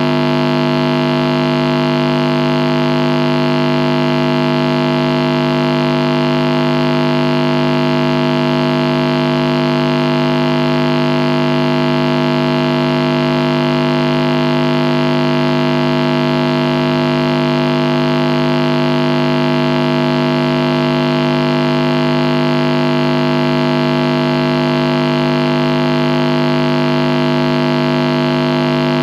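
Marshall guitar amplifier's static, switched on and idle: a loud, unchanging electrical buzz made of many stacked tones, with hiss over the top.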